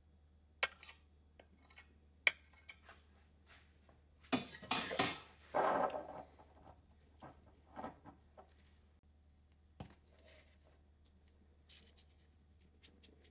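A thin metal utensil clicks and taps against a stainless steel saucepan, with about two seconds of denser clattering and scraping midway, then a few scattered light taps.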